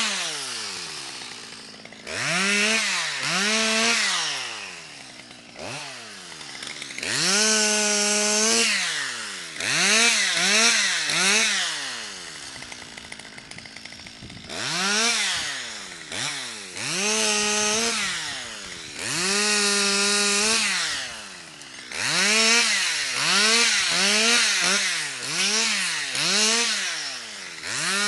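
Stihl 200 two-stroke chainsaw revved again and again in bursts of one to two seconds, dropping back between them, while limbing a birch. There is a quieter spell near the middle, before the bursts resume.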